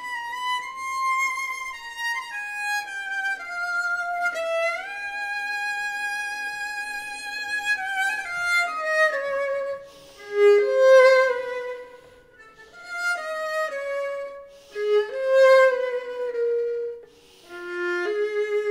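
Solo violin playing a melodic line of held notes with vibrato, with a slide upward about four seconds in. In the second half it plays louder, sharply accented notes, with short breaks between phrases.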